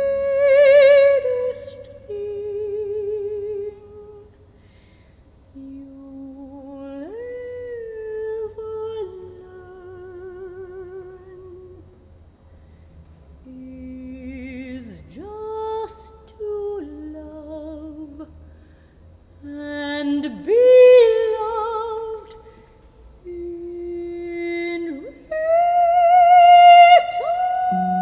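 Female voice singing slow, long-held notes with vibrato, sliding up into several of them, over soft concert-harp accompaniment.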